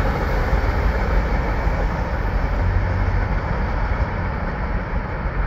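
Rumble of a freight train pulling away from a grade crossing after its last cars pass. The higher wheel noise dies away about two seconds in, leaving a steady low rumble.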